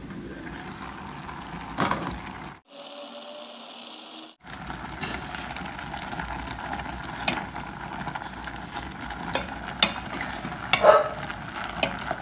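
A cooking utensil stirring vegetables in a stainless steel pot, knocking and scraping against the pot's sides several times in the second half, over a steady hiss. Near the start the pot's glass lid clanks once as it is taken off, and the sound drops out briefly around three seconds in.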